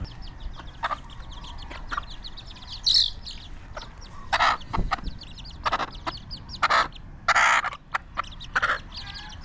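Backyard chickens clucking: a string of short calls, with one longer call a little past the middle.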